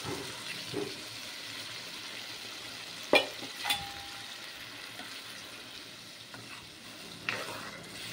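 Curry gravy sizzling in a nonstick kadai as it is stirred, just after tamarind water has gone into the fried masala. About three seconds in, a spoon knocks sharply twice against the pan, the second knock ringing briefly, with another lighter knock near the end.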